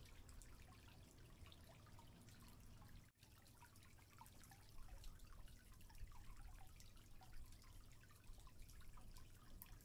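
Near silence, with faint, scattered small drips of aquarium water.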